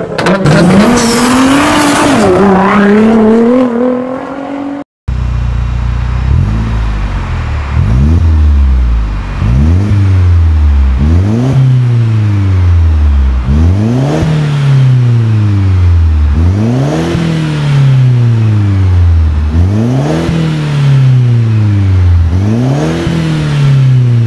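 Mercedes-Benz E250 coupe (W207) 1.8-litre turbocharged four-cylinder revved repeatedly, about every three seconds, each rev rising quickly and falling back slowly, through an exhaust whose catalytic converter has been replaced by a downpipe. Before the revving, an intro sound with a rising pitch plays and cuts off suddenly.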